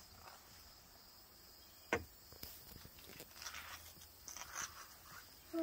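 Faint scuffing steps of a toddler carrying a soft cooler bag and a fishing rod, with one sharp knock about two seconds in and a few soft scuffs later. A faint, steady, high insect drone runs underneath.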